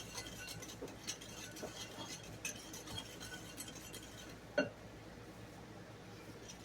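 Light clinking and tapping of kitchen utensils and dishes, scattered small ticks with one sharper knock about four and a half seconds in.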